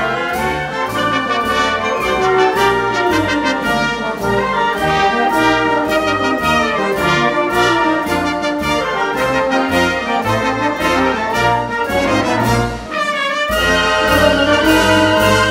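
A wind orchestra playing a brisk concert march, with trumpets and trombones to the fore over a steady percussion beat. Near the end the low instruments drop out for a moment before the full band comes back in.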